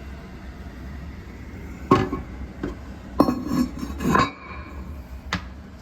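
Porcelain toilet tank lid being handled and set back on the tank: a few hard ceramic clinks and knocks, the loudest about two seconds in, a cluster between three and four and a half seconds, and a last one near the end.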